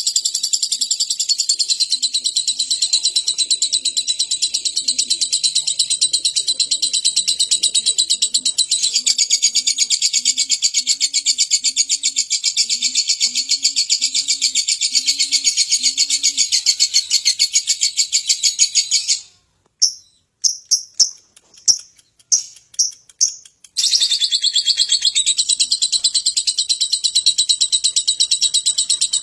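Lovebird's 'ngekek' song: one long, very rapid, high-pitched chattering trill. About nineteen seconds in it breaks off into a few separate chirps, and it starts again about five seconds later.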